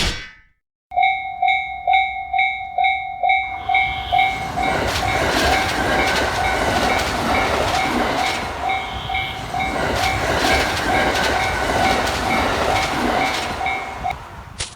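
Japanese railway crossing alarm ringing in a steady repeating ding about twice a second. About three and a half seconds in, a train starts running past with a rumble and wheel clatter. The alarm stops just before the end as the train noise fades.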